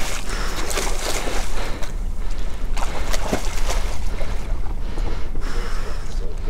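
Wind buffeting the microphone over water splashing and sloshing against the side of a boat, where a hooked giant trevally is being grabbed at the surface. The splashing comes in several louder surges.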